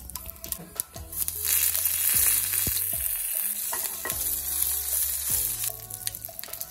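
Mustard seeds, dried red chillies and curry leaves sizzling in hot coconut oil in a small pan during a tempering. The hiss rises sharply about a second and a half in and eases near the end, with scattered pops around it.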